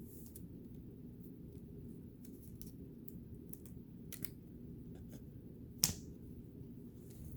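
Trading cards being handled and flipped through one by one: faint scattered clicks and slides of card stock, with one sharper snap about six seconds in, over a low steady hum.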